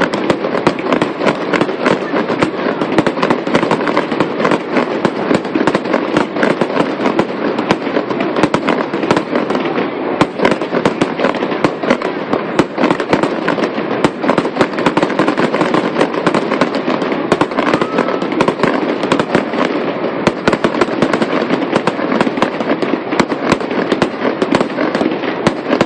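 Fireworks going off in a dense, unbroken crackle of many small sharp reports, several a second, at a steady loud level.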